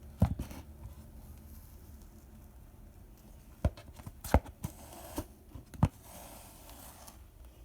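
Handling sounds as containers and utensils are moved about for a drink: a few scattered sharp knocks and clicks, two near the start and a cluster a little past the middle.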